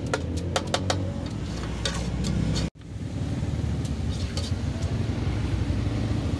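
Metal spatula clinking and scraping against a wok as the filling is stir-fried, over a steady low rumble of street traffic. The sound drops out abruptly a little under three seconds in; after that the traffic rumble dominates, with only occasional faint clinks.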